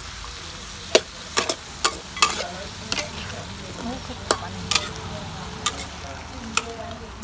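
Duck pieces stir-frying in a large steel wok, sizzling steadily, while a metal ladle scrapes and clinks against the pan about a dozen times at an irregular pace.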